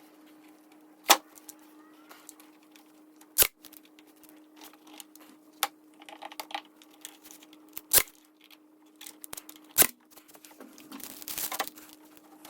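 Four loud, sharp knocks spread a few seconds apart, with lighter clicks and rattles between them over a steady faint hum.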